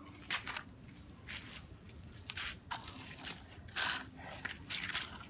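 Hands scraping and scooping dry sand on sandy ground, in a series of short, irregular scrapes, the loudest about four seconds in.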